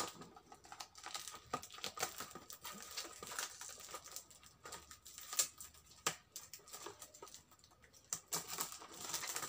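Clear plastic wrapping on a small cardboard retail box crinkling and tearing as it is pulled open by hand, a steady run of irregular crackles and small clicks.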